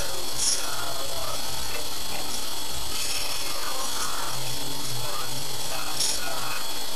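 Cabin sound picked up by a dashcam's built-in microphone in a car waiting at a red light: a steady raspy noise with a low idle rumble underneath and a thin high electronic whine. Two brief hissy ticks stand out, about half a second in and near the end.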